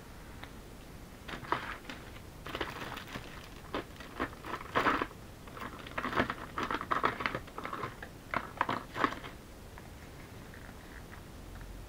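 Hands pressing and rubbing paper cut-outs onto a brown paper-bag journal page: irregular paper rustling and crinkling with small taps, starting about a second in and dying away a couple of seconds before the end.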